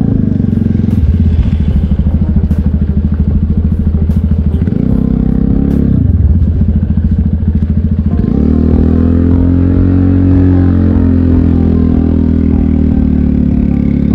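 Yamaha FZ25's single-cylinder engine running under way. Its revs dip and pick up again about five and eight seconds in, with light clicks and rattles over it in the first half.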